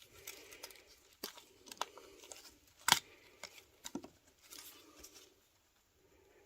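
Scattered sharp clicks and knocks over faint rustling handling noise, the loudest click about three seconds in.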